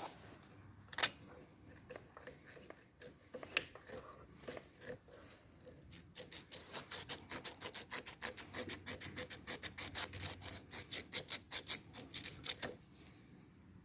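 Scattered clicks and light scrapes, then from about six seconds in a run of quick rubbing strokes, about five a second, that stops shortly before the end: something being scrubbed or rubbed back and forth by hand.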